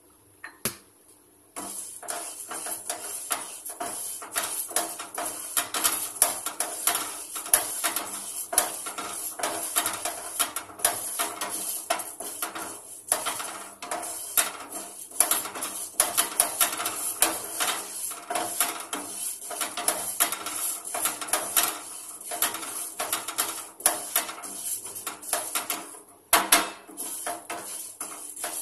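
Metal spoon stirring and scraping split moong dal around a small frying pan as the lentils roast. It is a fast, uneven run of scrapes and taps, starting about a second and a half in, with a short pause near the end before a few harder strokes.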